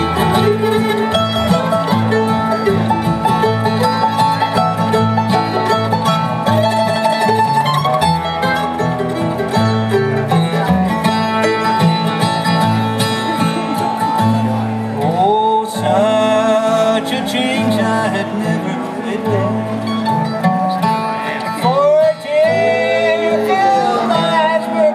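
Bluegrass music from a string band with plucked strings, playing steadily, with sliding melody lines partway through and again near the end.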